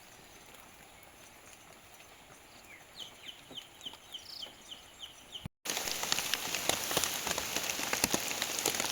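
A bird calls a quick series of about eight short, high notes. Then, after an abrupt cut, a much louder dense pattering sets in, like heavy rain or splashing water.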